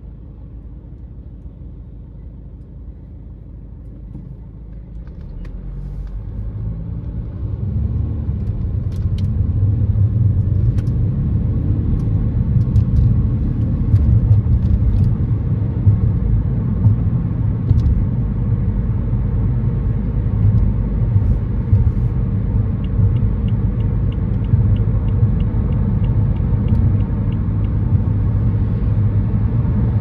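Car pulling away from a stop and driving on, its engine and tyre road noise building over the first several seconds into a steady low rumble. Near the end, a run of light, evenly spaced ticks, about two a second.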